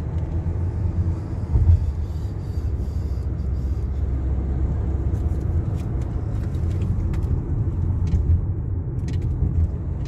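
Steady low rumble of a car's engine and tyres heard from inside the cabin while driving, with a brief louder bump about a second and a half in.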